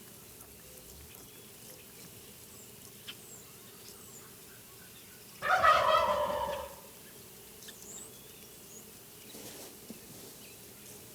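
A Merriam's wild turkey gobbler gobbling once, about halfway through: a loud, rapid rattling call that falls in pitch and lasts about a second and a half.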